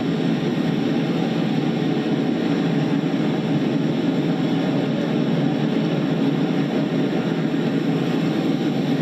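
Fire engine running steadily to drive its pump, with water spraying from its hose.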